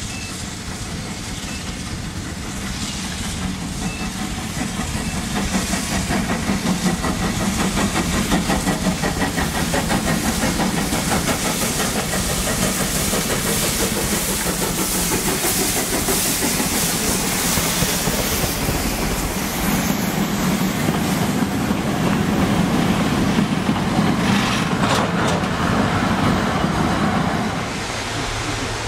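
Steam locomotive approaching under steam, with steam hiss and wheels on rail. It grows louder over the first several seconds, stays loud, and drops off abruptly near the end.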